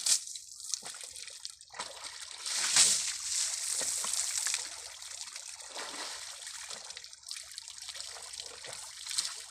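Water splashing and trickling as an elephant throws pond water over its body, with a louder stretch of splashing about two seconds in. A single knock right at the start.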